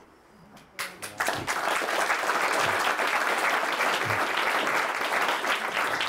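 Audience applauding, starting about a second in.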